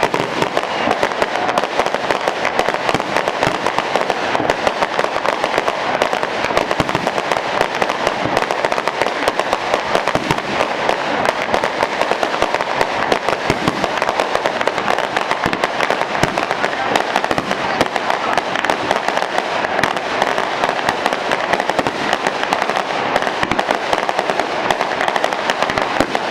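Fireworks display: a dense, unbroken barrage of crackling and popping from many shells and effects going off at once.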